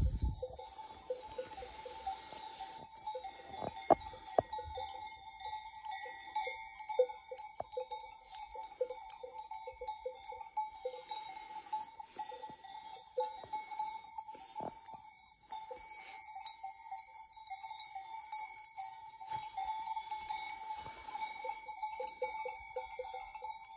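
Bells on a grazing flock of sheep and goats, clinking and ringing with the animals' movements, with a few sharper clanks.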